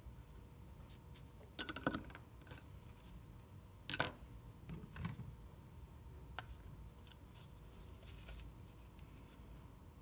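Light clicks and taps of small hand tools being handled and set down on the workbench: a quick run of clicks about two seconds in, one sharp click, the loudest, about four seconds in, then a few softer taps and ticks.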